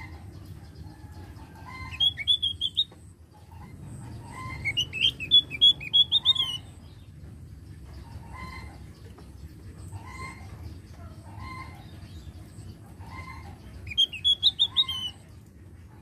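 Javan grey-throated white-eye (opior jawa) singing in three loud bursts of rapid high notes, with softer short calls repeating about every second and a half in between.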